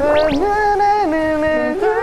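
Music of held, steady notes that step from one pitch to another, with two quick upward swoops about a quarter of a second in.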